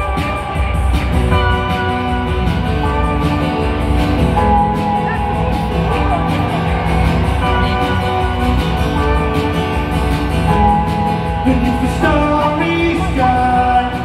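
Live rock band playing in an arena, heard from among the audience: electric and acoustic guitars, drums and keyboards, with singing over them.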